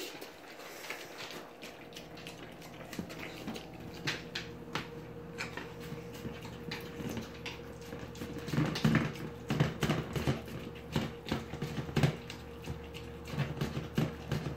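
Pit bull eating soft homemade food from a metal bowl: wet chomping, smacking and licking with quick clicks of the bowl, getting louder and busier about halfway through.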